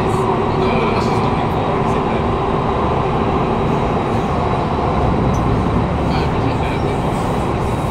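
Steady running noise inside a Kawasaki Heavy Industries C151 metro train's motor car: wheels on rail and traction motor noise from its GTO-VVVF drive.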